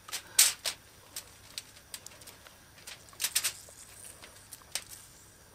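Aluminium foil crinkling in short, irregular clicks and crackles as hands handle a seasoned fish and a lemon wedge lying on it.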